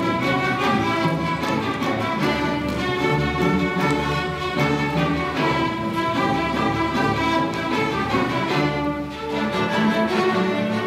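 A string orchestra of violins, cellos and double basses playing, with many bowed notes held together over a low bass line.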